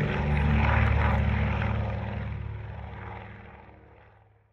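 A PBY Catalina's twin Pratt & Whitney R-1830 radial engines running as it flies a low pass, a steady low propeller drone that fades out to nothing over the last few seconds.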